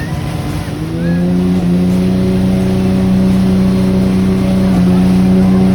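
Boat engine picking up revs about a second in, its pitch rising, then running steady at speed.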